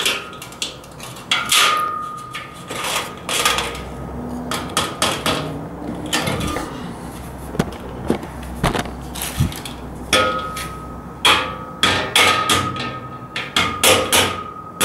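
White rubber mallet knocking a steel shelf beam into the slotted upright of a boltless metal shelving unit: repeated, irregular blows, several of them leaving a short metallic ring.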